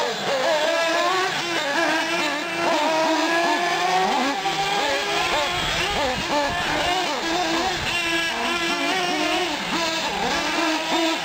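Several 1/8-scale nitro RC cars running around a dirt track. Their small glow-fuel engines whine at high pitch, and the overlapping notes constantly rise and fall as each one revs and backs off.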